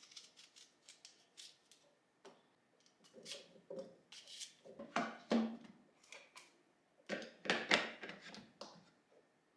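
Kitchen knife slicing through a crisp green apple held in the hand, a string of short crunching cuts, with the loudest run of sounds near the end as the plastic blender lid is fitted on.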